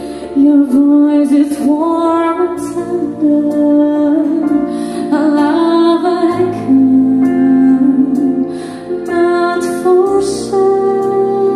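A slow song played through a pair of KEF Reference floorstanding loudspeakers: a voice sings a melody over bass notes held for a few seconds at a time.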